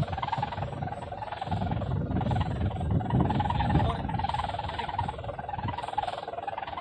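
Strong wind buffeting the microphone, with a steady wavering drone running beneath it.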